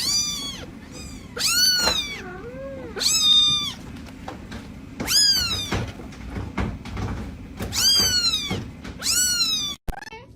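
A cat meowing over and over: about six high-pitched calls, each rising and then falling in pitch.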